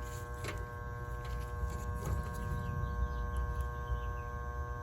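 Steady electrical hum made of several even tones, over a low rumble, with a few faint clicks.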